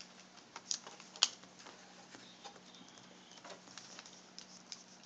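Light clicks and taps of fingers handling the video cable connector and its tape on the back of a laptop LCD panel, with one sharper click about a second in.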